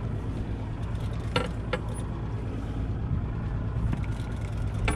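Boat engine running steadily at idle, a low even hum, with a couple of sharp clicks about a second and a half in and another near the end.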